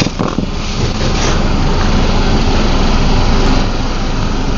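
A car engine running steadily after being started, under a steady rush of noise.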